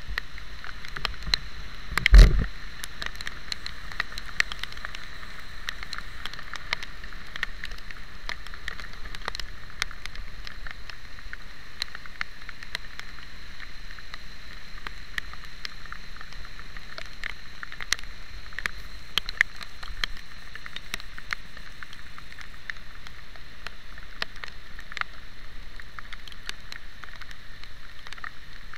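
Rain striking the housing of a camera on a moving motorcycle, heard as many sharp ticks over a steady hiss of wind and wet road. There is one loud thump about two seconds in.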